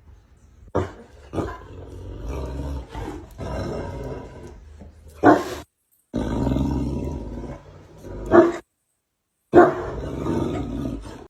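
A dog growling in rough stretches, with a few sharper loud calls. The sound breaks off abruptly twice.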